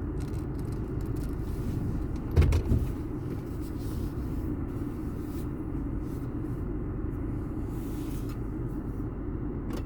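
Steady low road and engine rumble heard from inside a moving car, with a single sharp thump about two and a half seconds in.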